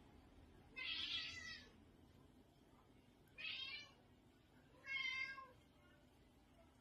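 A cat meowing three times, each call about half a second to a second long.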